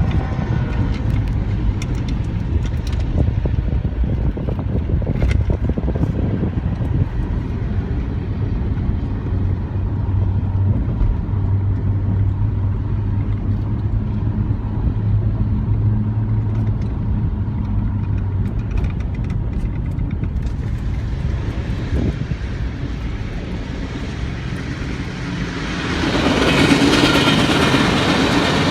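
Diesel locomotive engine running with a steady low drone, then a broad rush of train noise building about three-quarters of the way in as the train comes closer.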